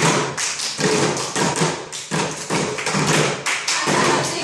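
A group of hands drumming in unison on the wooden seats of school chairs, a quick, steady rhythm of slaps and taps.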